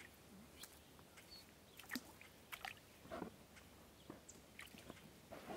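Faint, scattered small splashes and squelches of bare feet stepping through shallow water and wet sand, with near silence between them.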